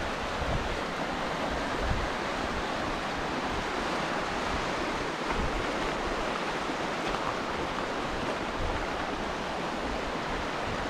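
River water rushing: a steady, even hiss of flowing water, with an irregular low rumble of wind on the microphone underneath.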